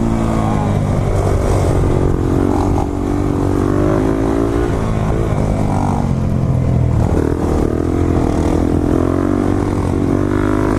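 Motorcycle engine running under way, its pitch climbing and dropping several times as the throttle is rolled on and off.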